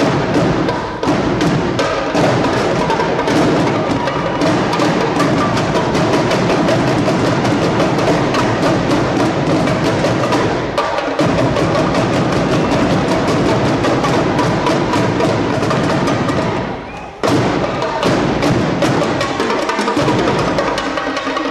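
Drum line playing a fast, dense cadence of rapid strikes, with a brief break about 17 seconds in before the playing comes back in hard.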